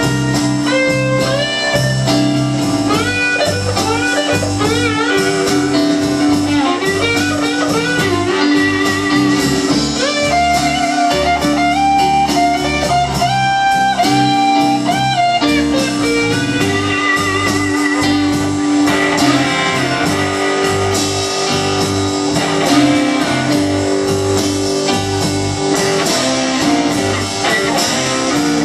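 Live blues band playing an instrumental passage: a lead guitar with bent, wavering notes over bass, keyboards and drums.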